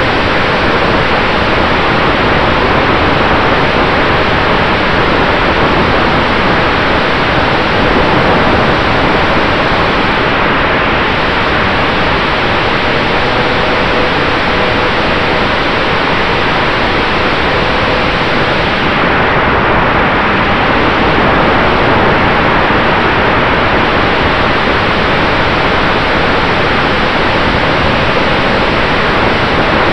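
Steady rushing wind noise over the onboard camera of an RC plane in flight, with a faint steady whine from the electric motor and propeller underneath.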